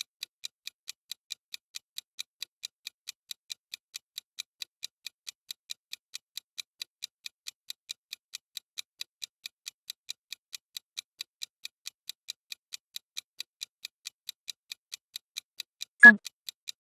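Interval workout timer's ticking, steady at about four high clicks a second, counting down the exercise interval.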